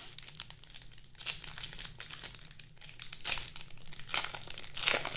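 Plastic trading-card pack wrapper being torn open and crinkled by hand, with irregular crackling and a few louder crinkles near the end.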